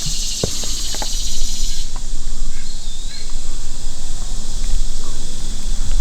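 Dense chorus of insects in summer woods, a steady high-pitched buzzing that drops to a lower level about two seconds in, over a low steady rumble.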